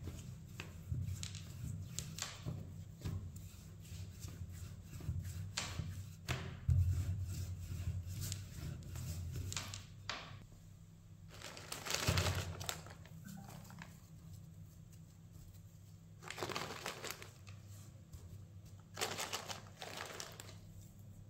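Wooden rolling pin rolled back and forth over dough on a silicone baking mat, a run of short rolling strokes. About halfway it gives way to a few separate rustling bursts as shredded mozzarella is shaken out of a clear plastic container onto the dough.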